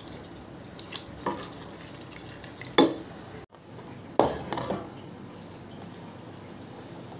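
Cookware being handled while stirring: a silicone spatula working through boiled macaroni in a metal pot, then tomato sauce in a pan. Several short, sharp knocks of utensil on pot sound over a steady low hiss, the loudest a little under three seconds in.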